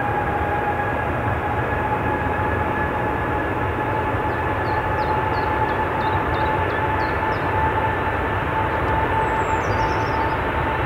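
The jet engines of an Airbus A380 are running on the ground with a steady two-note whine over a loud rushing roar as the airliner moves along the runway. Faint short high chirps sound about halfway through.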